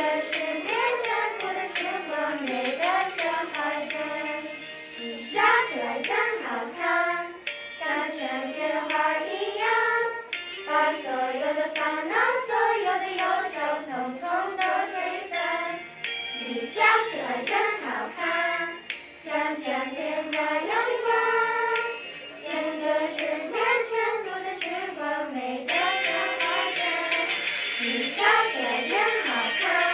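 A group of children singing a song together in unison over music.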